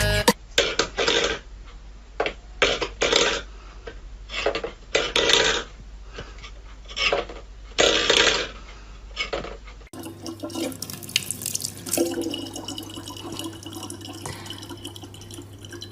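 Water splashing in short, irregular bursts. About ten seconds in it gives way to a steady running tap.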